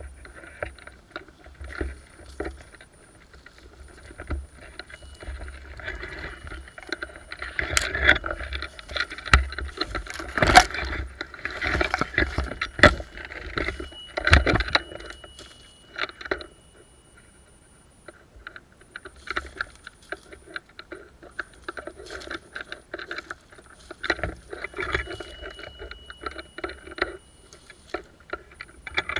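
An airsoft player moving through forest undergrowth: irregular rustling and crunching of brush and leaves with gear rattling, and several sharp knocks or clicks in the middle stretch, then a brief lull.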